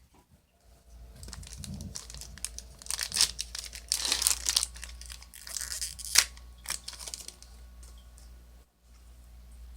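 Foil Yu-Gi-Oh booster pack being torn open and crinkled by hand, in rustling bursts that are densest in the middle, with one sharp snap about six seconds in.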